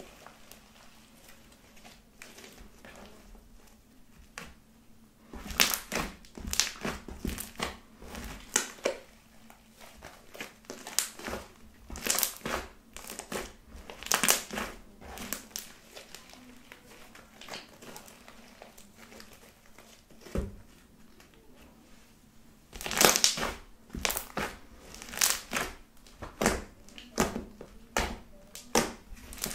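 Thick, fluffy body-lotion slime being squeezed, folded and poked by hand, making short sticky squishes in irregular bursts. It is faint for the first few seconds, busy for a stretch, goes quiet with a single click in the middle, then busy again near the end.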